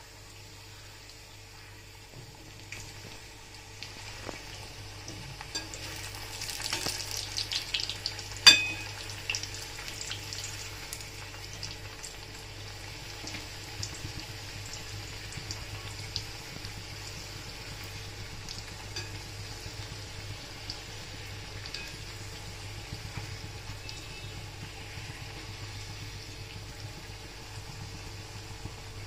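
Kadakani dough pieces deep-frying in hot oil, a steady sizzling crackle that builds up a few seconds in and is busiest for a couple of seconds. One sharp knock stands out near the middle.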